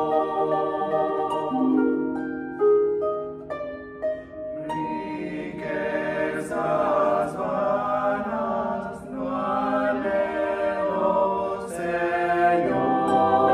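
A mixed vocal quartet of two men and two women sings a hymn arrangement in harmony, with harp accompaniment. About two seconds in the voices break off, and the harp's plucked notes carry on alone until the singing comes back in around five seconds in.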